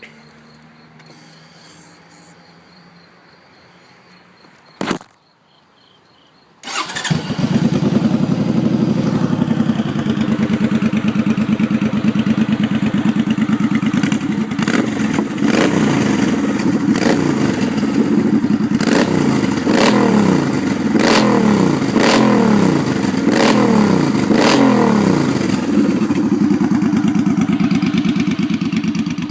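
2011 Suzuki Boulevard C50T's V-twin engine, fitted with 2.5-inch Road Burner aftermarket exhaust, catching and starting after a single sharp knock, then running with a string of quick throttle blips in the middle before settling back to a steady idle.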